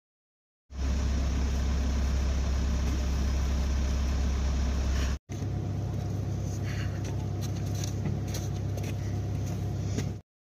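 Steady low rumble of wind buffeting a phone's microphone outdoors in falling snow, in two stretches cut apart about five seconds in, the second slightly thinner in the low end with a few faint clicks of handling.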